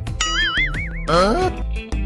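Cartoon-style comedy sound effect over background music: a warbling, wobbling tone, then a quick rising glide about a second in.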